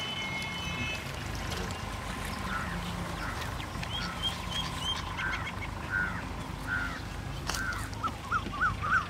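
Birds calling outdoors: short arched calls repeat about every half second to a second, then come in a quicker run near the end, with a few higher chirps between.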